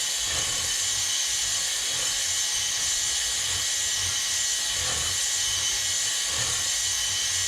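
Electric drill spinning a spring-loaded cylinder hone inside a motorcycle cylinder barrel, a steady hiss of the abrasive stones working the wet bore while the hone is moved up and down. The honing is smoothing out grooves that a piston ring scored in the bore.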